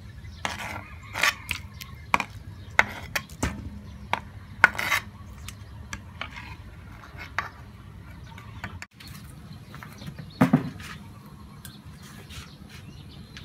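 Scattered clinks and knocks of boiled pork pieces and the stainless steel bowl they sit in being handled and moved about, several in quick succession in the first few seconds and one louder knock about ten seconds in.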